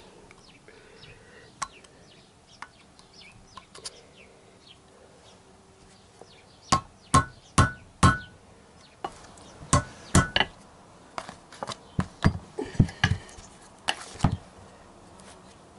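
A few faint ticks and scrapes, then from about seven seconds in a run of sharp hammer blows on metal, uneven and roughly two a second, each with a short ring: a small red-handled tool being hammered against the tapered roller bearing on a motorcycle's steering stem.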